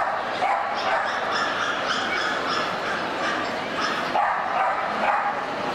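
Dog barking in a run of short, repeated barks, pausing briefly about four seconds in.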